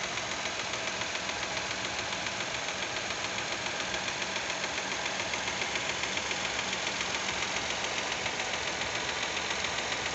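Fiat Argo's Firefly 1.0 three-cylinder engine running hot, with a rapid, even ticking over the engine noise. The owner calls it a tappet noise and finds it odd, since he believes this engine has hydraulic lifters, which he thinks shouldn't tick.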